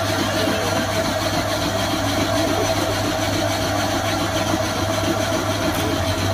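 Electric ice shaver running with a steady hum as its blade shaves a block of ice into fine snow.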